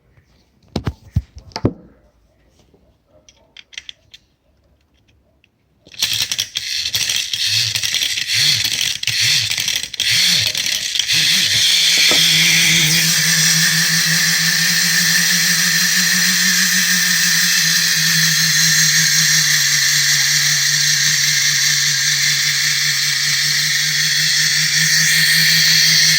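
A few clicks, then about six seconds in the clockwork mechanism of a 1950s Asakusa mechanical talking parrot toy starts running. It rattles at first, then settles into a loud, steady whirring buzz.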